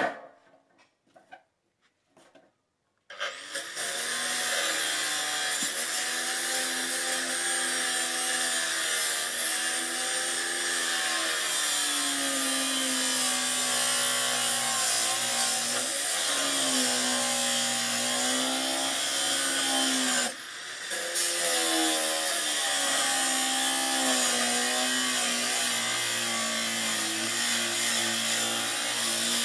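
Electric angle grinder cutting through a steel bar, starting about three seconds in after a near-silent opening with a few clicks. Its whine wavers in pitch as the load on the disc changes, and drops away briefly about two-thirds of the way through before the cut carries on.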